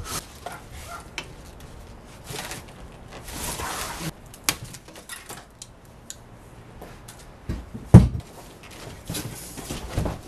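Cardboard box and paper wrapping being handled as tricycle parts are pulled out: rustling and scraping with a few sharp clicks, a heavy thump about eight seconds in and a smaller thump near the end.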